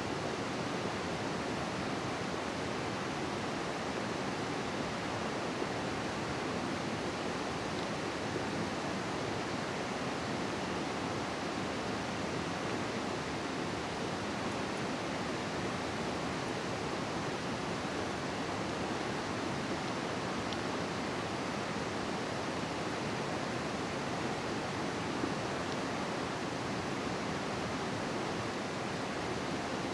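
River water running over shallow gravel, a steady even noise with no breaks.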